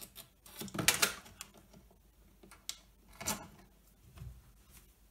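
Irregular light clicks and knocks of multimeter test probes and leads being handled and repositioned. The loudest cluster comes about a second in, another about three seconds in, and a soft knock follows a little after four seconds.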